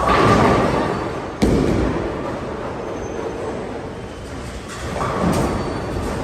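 Bowling alley lane sounds: a loud noisy rumble that starts suddenly and fades over about a second, a sharp crack about a second and a half in, and another swell of rumbling and clatter near the end, as of bowling balls rolling and striking pins.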